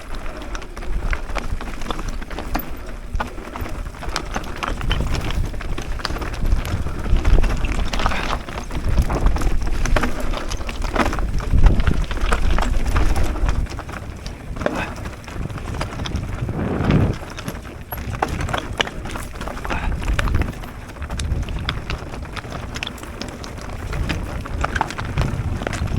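Mountain bike riding down a dirt trail: tyres rolling over rough ground with many rattles and clicks from the bike and low rumbling bumps, loudest around the middle.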